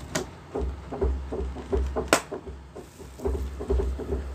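Someone knocking and banging on a closed door: an uneven run of dull thumps, with two sharper knocks, one near the start and one about two seconds in.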